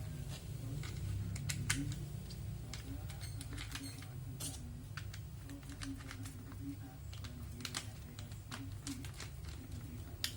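Plastic toy construction-truck kit pieces being handled and fitted together: light, irregular clicks and taps, over a steady low hum.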